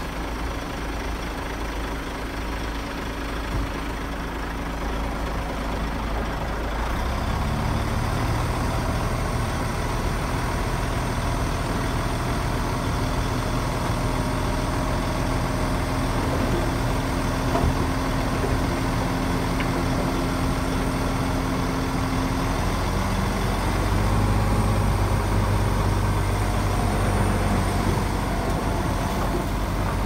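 Heavy diesel engine of earthmoving machinery running, its note rising and getting louder about seven seconds in and shifting again a little past two-thirds through.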